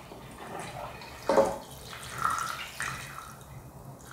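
Water poured from a glass measuring jug into a pressure cooker pot, splashing steadily onto the chicken inside, with a brief louder burst about a second in.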